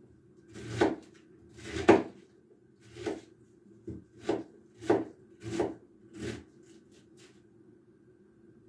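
Kitchen knife shredding white cabbage on a wooden cutting board, with about eight separate cutting strokes at an uneven pace, then a pause for the last couple of seconds.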